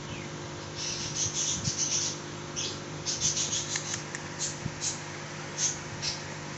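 Quick clusters of short, scratchy rubbing sounds over a steady low hum.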